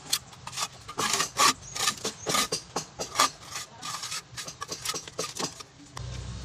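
Steel pointed trowel scraping and smoothing wet cement mortar against the chipped base of a ceramic toilet bowl and the concrete floor, in quick, irregular strokes. A low steady hum comes in near the end.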